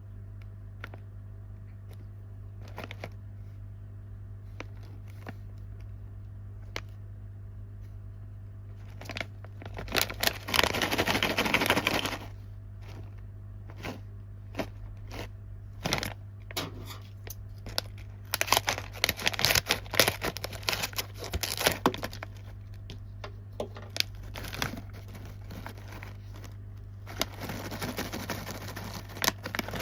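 Plastic snack packaging being crinkled and torn open by hand, in bursts: a long rustle about ten seconds in, a run of crackles and taps around twenty seconds, and more rustling near the end, over a steady low hum.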